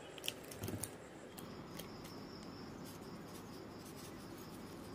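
A few faint snips and clicks of scissors cutting open a plastic seasoning sachet in the first couple of seconds, then low room noise.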